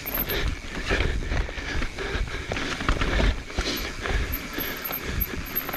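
Evil Wreckoning LB mountain bike descending a dirt trail: tyres rolling over dirt, roots and leaves under a low rumble, with frequent short knocks and rattles from the bike.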